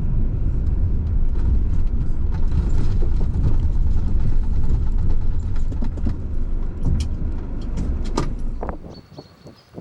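Citroen van driving: a steady low rumble of engine and tyres heard from inside the cab, with a few sharp clicks. The rumble cuts off suddenly near the end.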